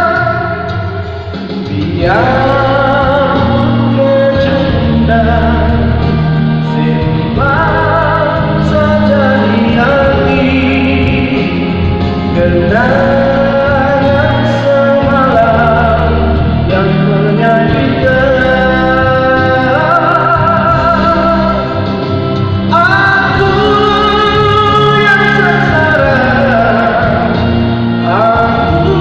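A man singing a Malay ballad into a microphone over instrumental accompaniment, in sustained phrases with vibrato.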